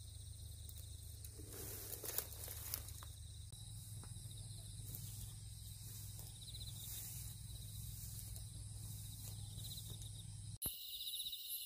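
Faint outdoor ambience: a steady low hum under thin, high insect trilling, with a few light clicks about two seconds in. Near the end a sudden cut brings louder crickets chirping in a fast pulsing trill.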